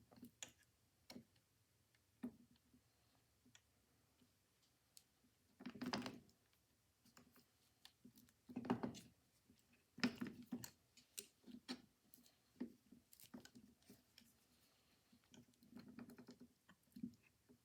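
Faint, scattered clicks and light metal knocks from a Victrola VV-IX phonograph's spring motor as its spring barrel is wiggled to seat the ratchet and shaft in the casting. There are a few short bursts of louder rattling.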